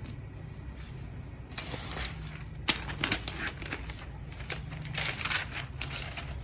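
Packaging being handled during an unboxing, crinkling and crackling in three bursts with sharp clicks, over a steady low hum.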